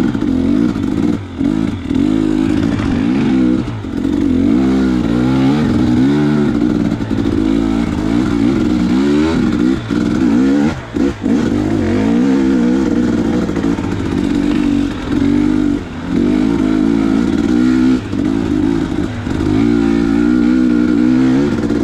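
2019 KTM 250 XC's single-cylinder two-stroke engine revving up and down again and again, its pitch rising and falling with the throttle, with a few brief drops when the throttle is shut.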